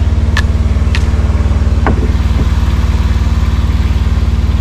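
An engine idling steadily with a fast even pulse. Over it come several sharp snips from bypass loppers cutting dead twigs in the first two seconds.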